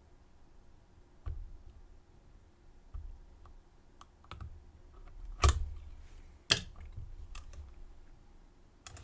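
Irregular small metallic clicks and taps from lock picks and a tension wrench working in the keyway of a Zeta ZR45 padlock, with two sharper clicks about five and a half and six and a half seconds in.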